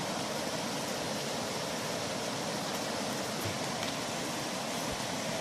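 A river's flowing water making a steady rushing noise.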